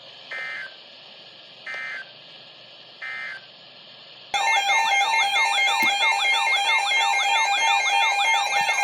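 Emergency Alert System tones. First come three short digital data bursts about a second and a half apart, the kind that close a weather-radio warning. About four seconds in, a loud electronic alert tone cuts in, warbling rapidly over steady pulsing tones.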